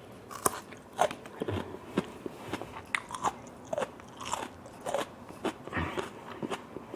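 Close-up chewing of grilled tiger prawns with crisp raw lettuce and carrots: a steady run of sharp crunches, about two a second.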